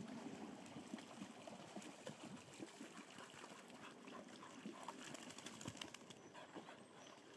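Faint splashing and dripping of water as a springer spaniel swims to the bank and scrambles out, many small irregular splashes.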